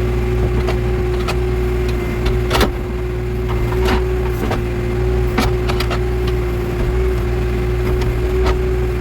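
Backhoe loader's diesel engine running steadily under a constant whine, with irregular sharp cracks and knocks, the loudest about two and a half seconds in.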